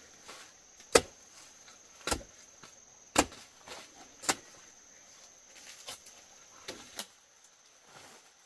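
Blade chopping into a plant stem near its base: four sharp strokes about a second apart, then a few lighter ones. A steady high insect drone runs underneath.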